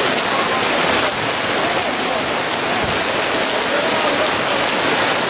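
Heavy rain pouring down steadily on the tent canopy overhead and the field around it.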